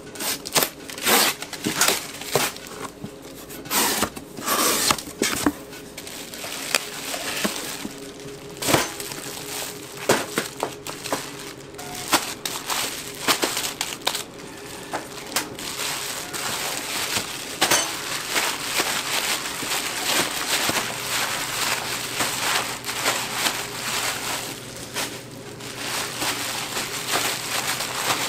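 Large plastic bags of rice-cake sticks crinkling and rustling as gloved hands pull and handle them, with sharp knocks and clicks against the cardboard box and steel worktable.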